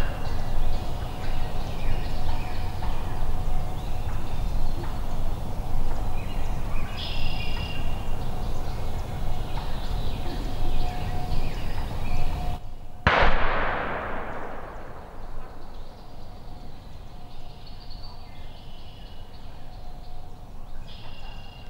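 Wild turkey hen putting, with short calls over a low steady rumble. About 13 seconds in, a single shotgun shot rings out and echoes away through the woods: other hunters killing the gobbler.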